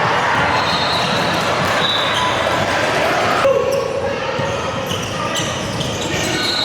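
A basketball being dribbled on a gym court, with crowd voices throughout. The crowd noise dips a little about halfway through.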